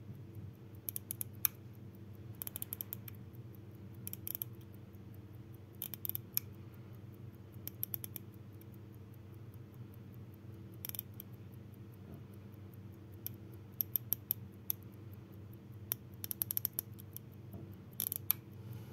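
Short bursts of rapid, small clicks from a Soviet Serkisof pocket watch being handled, about ten bursts, over a steady low hum.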